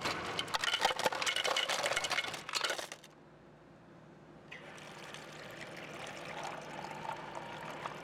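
Water splashing and pouring with many small sharp clicks for about three seconds, stopping suddenly; after a short lull a steady stream of running water starts and carries on.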